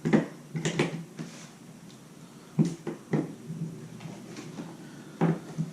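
Accessory box contents being handled and set down: about six short knocks and clicks of packaging, cables and paperwork, with light rustling between.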